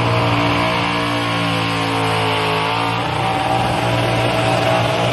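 Burnout car's engine held at high revs while the rear tyres spin and smoke, over a steady hiss of tyre noise. The engine note holds steady, then rises in pitch about three seconds in.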